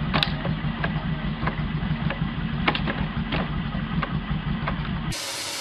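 Flywheel-driven log splitter with its engine running steadily, a sharp crack or knock about every two-thirds of a second as the machine strokes through the wood. About five seconds in it stops abruptly and a steady hiss of another machine takes over.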